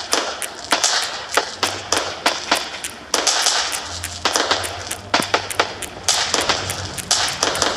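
Fireworks going off in rapid succession: sharp bangs, several a second, with crackling and hissing between them.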